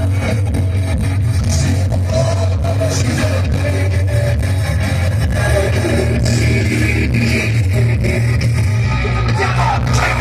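A live heavy metal band playing, with electric guitars and a drum kit, recorded from the crowd at a stadium concert. The recording is boomy and distorted, its low end overloading the microphone.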